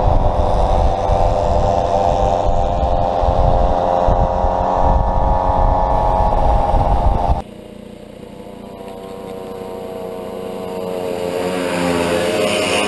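Two-stroke moped engine running steadily at cruising speed, with heavy wind buffeting on the microphone. About halfway through the sound cuts off suddenly to a quieter engine note that rises in pitch and grows louder as mopeds accelerate.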